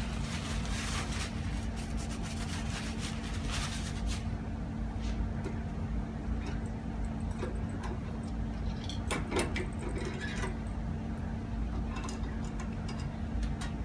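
Steady low hum of laboratory equipment with a constant droning tone. Over it come faint clicks and rustles as a metal pressure-transducer assembly is wiped with a tissue and unclamped from its stand, a little louder about nine to ten seconds in.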